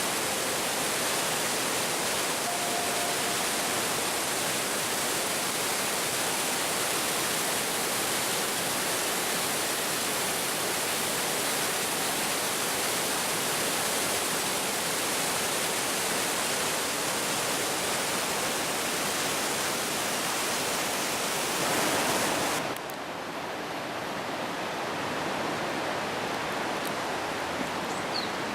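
Steady rushing of water at Fukiware Falls, a wide, low waterfall on the Katashina River. About three-quarters of the way through it drops abruptly to a quieter, duller rush.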